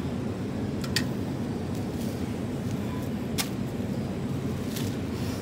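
Steady low rumble of supermarket ambience, with two short sharp clicks, one about a second in and another about two and a half seconds later.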